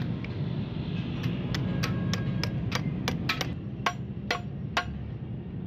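Hammer taps driving the input shaft bearing of a Mazda 3500 gearbox into the gearbox case: about a dozen sharp metallic taps, irregularly spaced, from about a second in until near the end, over a steady low hum.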